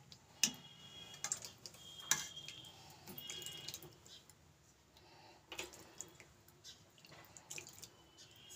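A steel ladle clinking and scraping against a steel pot and bowl while thick soup is ladled into the bowl, with soft splashing of the soup. A few light metallic clinks with a short ring.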